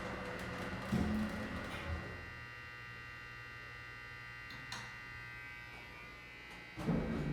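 Otis hydraulic elevator car: a steady electrical buzz with a single short click partway through, of the kind the owner suspects comes from a relay in the car, then a louder clatter near the end.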